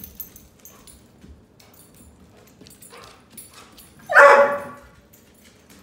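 A dog barks once, loud, about four seconds in, after a few seconds of faint shuffling.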